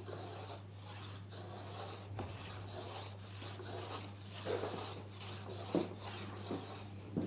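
Stanley No. 60½ low-angle block plane taking wispy thin, not full-width shavings off a maple board: a hiss with each quick push, about a dozen strokes. There are a couple of light knocks near the end.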